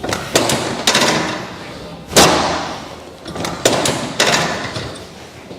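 A series of about six sharp thuds on a chiropractic treatment table during hands-on adjustment, each trailing off quickly, the loudest about two seconds in.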